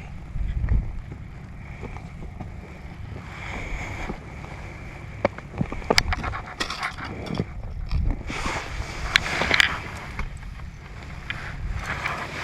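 Wind buffeting the microphone as a steady low rumble, with scattered clicks and a stretch of rustling hiss about two-thirds of the way through.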